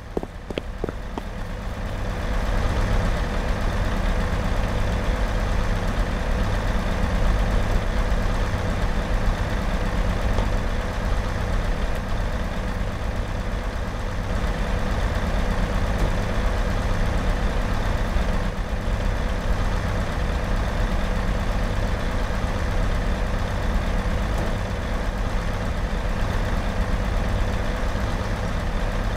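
A large vehicle's engine running with a steady low rumble that builds over the first couple of seconds and then holds.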